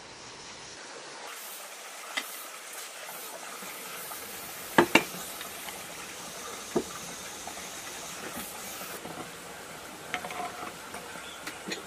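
Sharp metallic knocks and clinks as cast-iron diesel engine parts are handled and set down on a workbench: a single tap about two seconds in, two loud knocks close together about five seconds in, another near seven seconds, and a few lighter clinks near the end, over a steady background hiss.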